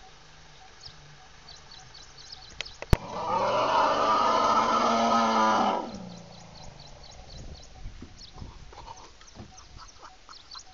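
Asian elephant trumpeting once, a loud harsh call lasting about two and a half seconds, beginning about three seconds in. A sharp click comes just before it, and faint high bird chirps sound throughout.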